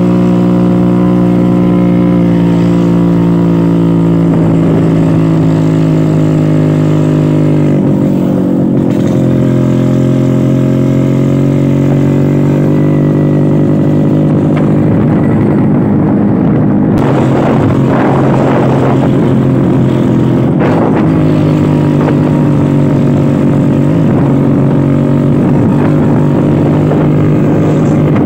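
Classic Vespa scooter's two-stroke engine running under way, a steady drone whose pitch drops about eight seconds in and holds lower after that, with a few short noisy swells in the second half.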